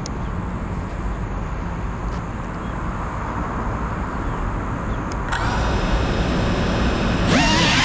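Steady low rumble of wind and distant traffic, then about five seconds in the GEPRC CineLog 35 cinewhoop's motors spin up with a steady high whine. Near the end the motor pitch rises and wavers as the throttle goes up for takeoff.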